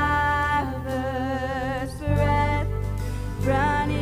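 Live worship band music: voices singing long held notes with a slight waver, over keyboards, bass and drums.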